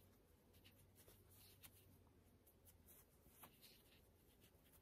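Near silence with faint, scattered soft rustles and ticks: cotton charm squares being leafed through by hand.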